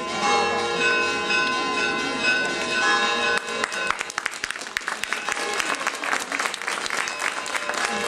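Church bells ringing. About three and a half seconds in, a crowd breaks into applause, which goes on over the bells.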